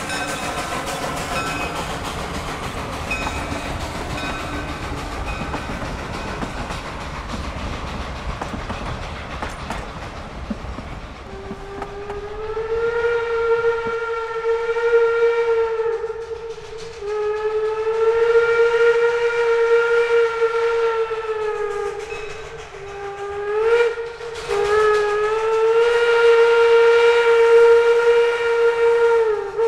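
A two-foot gauge steam train's cars roll past with steady wheel clatter and steam noise. Then, about eleven seconds in, steam locomotive No. 9 blows its whistle in the grade-crossing pattern: two long blasts, one short, then a long one still sounding at the end.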